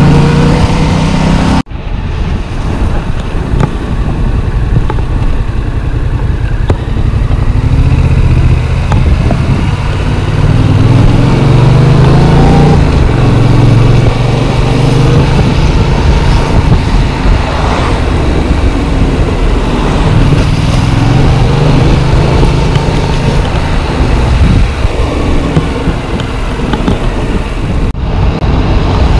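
Yamaha MT-07's parallel-twin engine running under way, its pitch rising and falling repeatedly with throttle and gear changes. The sound breaks off for a moment about two seconds in.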